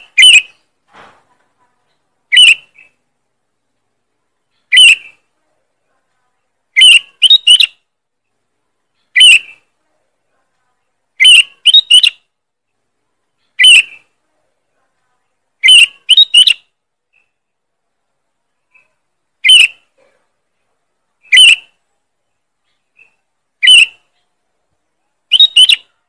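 Sooty-headed bulbul (kutilang) giving loud, sharp, short calls about every two seconds, some in quick pairs or threes.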